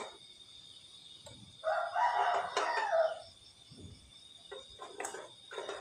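A rooster crows once, a single call lasting about a second and a half, about two seconds in.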